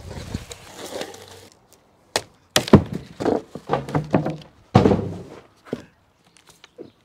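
Plastic stretch wrap rustling as it is pulled off. Then, from about two seconds in, a run of sharp wooden knocks and thunks as plywood cover sheets are lifted off a stack of floorboards and set down.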